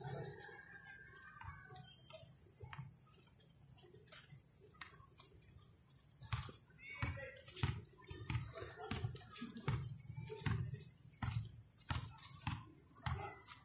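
Footsteps on a sandy dirt path close to the microphone, starting about six seconds in and falling into an even walking pace of roughly one step every 0.7 s, over a steady high hiss.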